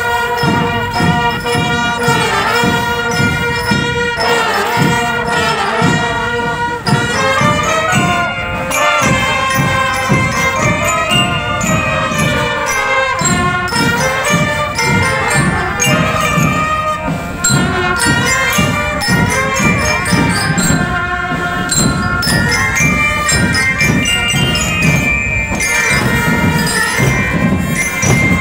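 Marching drum band playing a march while on the move: brass horns carry the melody over a steady beat of bass drums.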